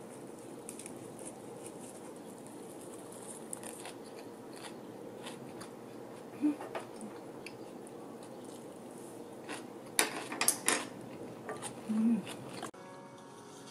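Eating sounds at a table: chewing and small clicks and taps of wooden chopsticks and tableware on a wooden table, over a steady room hum. A quick run of sharp clicks comes about ten seconds in, and soft music starts just before the end.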